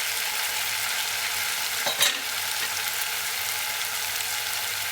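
Mint-coriander chutney frying in hot ghee in a pan, a steady sizzle, with one sharp knock about two seconds in.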